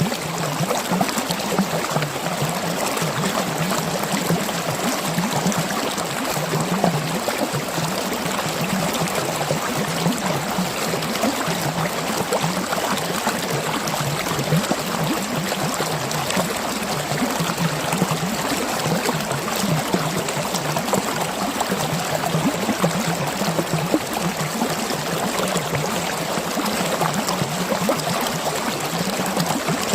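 Mountain stream flowing and gurgling: a steady rush of running water.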